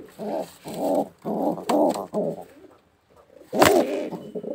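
A bad-tempered domestic pigeon coos in several rolling bursts. About three and a half seconds in comes a sudden loud wing flap.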